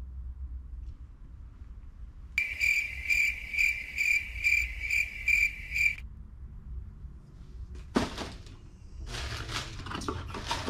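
An electronic ringing tone, pulsing about two or three times a second, starts abruptly a couple of seconds in and cuts off after about three and a half seconds. A single knock follows, then rustling and clattering handling noise near the end.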